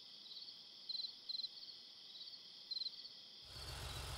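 Crickets chirping in short pulsed trills as a night-time background. About three and a half seconds in, a low engine rumble starts as the cartoon police car drives off.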